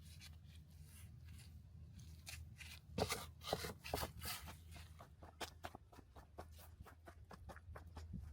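A series of short, crisp clicks and crunches, like hands working at plants or soil. A few louder ones come about three to four seconds in, then a quicker run of lighter ticks.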